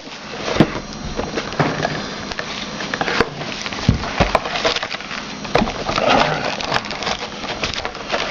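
Irregular crackling, tearing and tapping of packaging being opened by hand: a sealed box of trading cards being unwrapped and opened.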